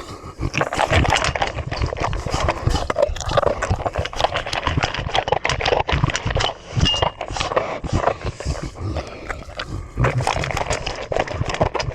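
A dog chewing and munching: a rapid, irregular run of crunches and mouth clicks.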